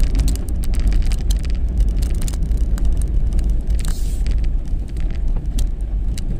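A vehicle driving off-road: a steady low rumble with many quick clicks and rattles, and a brief hiss about four seconds in.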